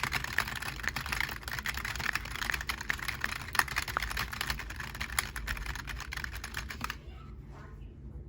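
Rapid, dense clicking and rattling of small plastic parts, as of Lego Technic pieces being handled or turned, stopping about seven seconds in.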